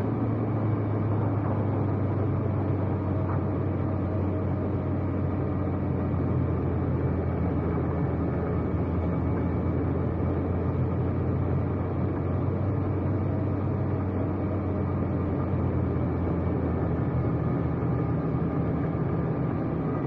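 Vehicle driving along a road: steady engine and road noise with a low hum.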